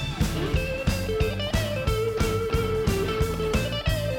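Instrumental background music with a steady beat and a sustained melody.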